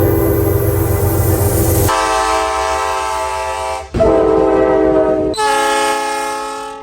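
Train air horns sounding in four short clips cut together. Each is a held multi-note horn chord lasting about one and a half to two seconds before the sound changes abruptly to the next. The first has a low rumble under it.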